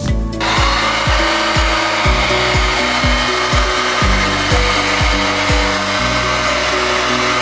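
Background music with a steady beat of about two low kicks a second, with a steady, loud, noisy whir over it that comes in suddenly at the start and runs on.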